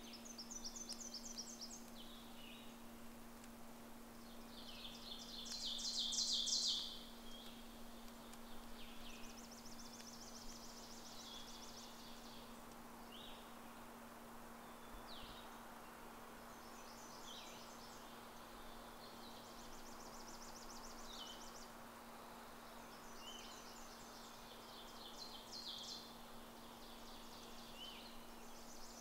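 Songbirds singing: repeated short, high trilled phrases and chirps, the loudest trill about six seconds in, over a faint steady low hum.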